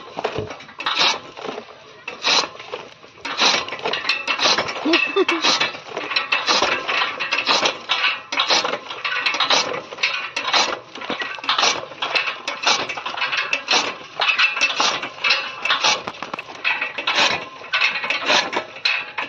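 Hand-cranked chaff cutter chopping green fodder: a sharp metallic chop of the flywheel blade about once a second, with lighter clinking and clattering of the iron mechanism between strokes.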